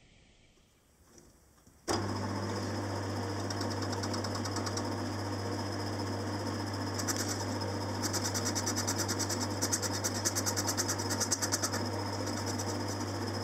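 Small metal lathe starting abruptly about two seconds in and running with a steady low hum while a lathe tool faces off a model steam engine flywheel held in a three-jaw chuck. A fast, even ticking from the cut comes in about halfway through and fades near the end.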